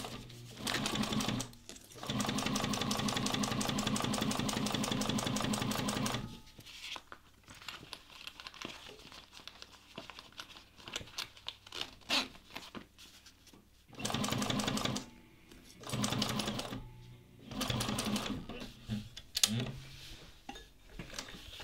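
Juki 1541 industrial walking-foot sewing machine stitching in runs: a short burst, a steady run of about four seconds, then several shorter runs in the second half. The machine is basting a zipper to a vinyl-coated fabric panel. Quieter rustling of the fabric being handled fills the pauses.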